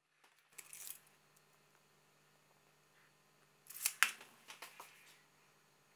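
Quiet handling sounds of a steel caliper and a thin wooden offcut: a faint scrape about half a second in, then a short cluster of clicks and knocks around four seconds, followed by a few small ticks.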